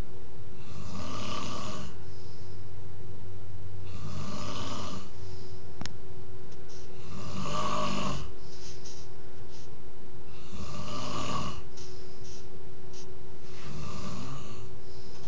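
A man snoring in his sleep: five snores, one about every three seconds.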